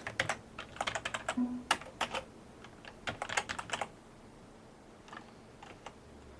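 Computer keyboard being typed on in short bursts of quick keystrokes, with a few fainter clicks near the end.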